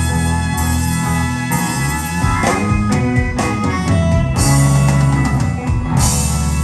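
A live band playing, with drum kit and guitar.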